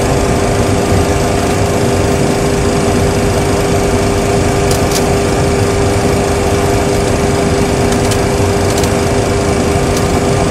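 Simulated Boeing 737 Classic cockpit sound with the twin CFM56-3 engines idling: a steady, loud rumble with a constant hum over it and a few faint clicks.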